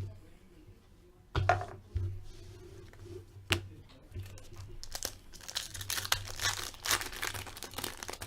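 Foil trading-card pack wrapper crinkling and tearing. A couple of sharp clicks come first, then a dense run of crackling from about the middle on.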